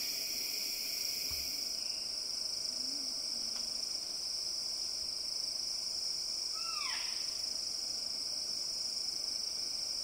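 Rainforest insects droning steadily at a high pitch, a second lower drone stopping about two seconds in. About seven seconds in, a single short call slides down in pitch.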